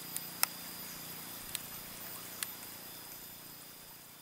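Outdoor ambience with a steady high-pitched insect drone over a hiss and a faint low hum, broken by four short sharp clicks in the first two and a half seconds. It grows fainter near the end.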